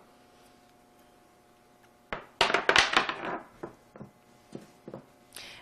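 Rubber multi-arm tire chain adjuster set down on a table: a knock about two seconds in, then a short clatter of rubber arms and metal hooks landing, followed by a few lighter knocks as the arms are spread out.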